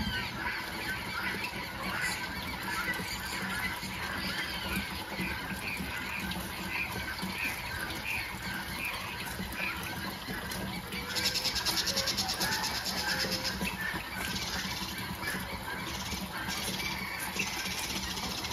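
Many birds giving short calls throughout, with water from a watering can splashing onto the soil of the garden beds. A fast, high rattling sound comes in for about three seconds near the middle.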